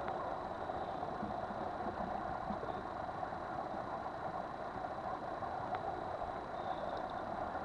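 Steady drone of a boat under way: its engine running evenly with water rushing past the hull, at a constant level.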